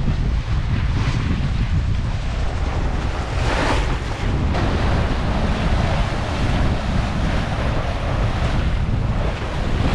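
Wind buffeting the microphone on a sailing yacht under way, over the wash of water along the hull, with a stronger gust about three and a half seconds in.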